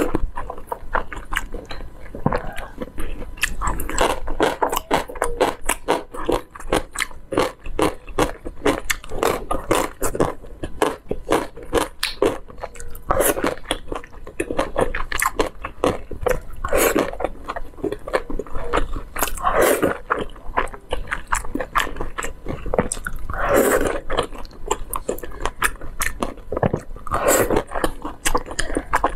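Close-miked mouth sounds of a person eating saucy noodles and dumplings: steady chewing with many small wet clicks, and a longer, louder sound every few seconds.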